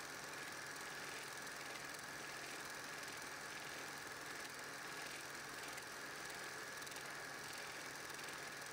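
8mm film projector running, a steady mechanical whir with hiss and a soft repeating pulse about one and a half times a second.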